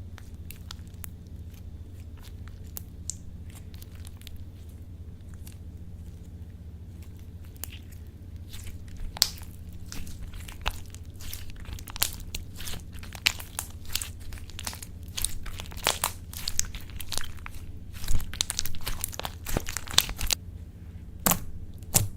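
Slime being squished and worked by hand, making sticky crackles and pops. The clicks are sparse at first, then become dense and louder from about eight seconds in, over a steady low hum.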